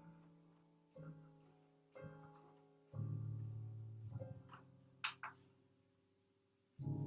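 Solo improvised instrumental music: struck notes about once a second, each ringing and fading, then a deep low chord about three seconds in and another near the end. Two short sharp clicks sound a little after the middle.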